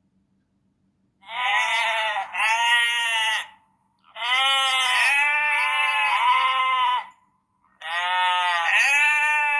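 Sheep bleating in a series of long, wavering calls: two close together, then a long one, then another that runs on past the end.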